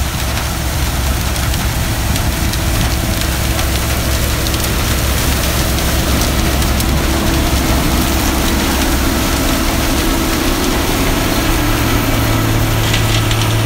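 Bizon BS Z110 combine harvester running under load as it harvests sunflowers with a John Greaves sunflower header: a steady, loud engine and machinery noise. A low hum grows stronger near the end.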